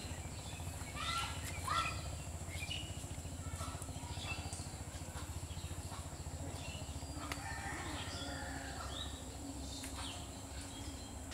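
Birds calling: many short chirps and calls scattered throughout, over a steady low hum and a thin, steady high-pitched tone.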